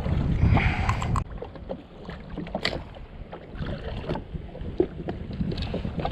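Wind buffeting the microphone on a jet ski drifting at sea, strongest in the first second. Scattered short knocks and clicks come through it.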